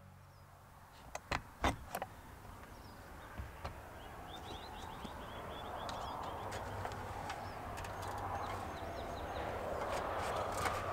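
Teardrop camper door unlatching and swinging open: a few sharp clicks and knocks, with a couple more a moment later. A bird trills briefly in the middle, while a rush of passing highway traffic slowly swells.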